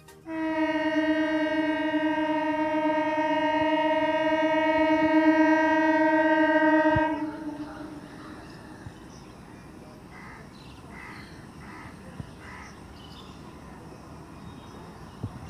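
Indian Railways EMU local train's horn sounding one long steady blast of about seven seconds, then cutting off. Quieter outdoor background follows.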